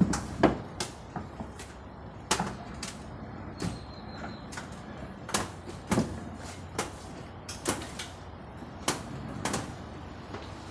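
Walk-behind tow tractor maneuvering in a truck bed: sharp, irregular clunks and knocks, roughly one a second, over a low steady hum.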